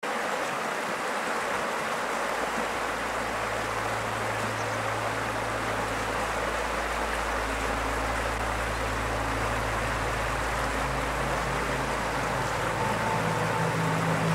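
Steady rush of a river flowing over stones, with a low steady hum joining about two seconds in.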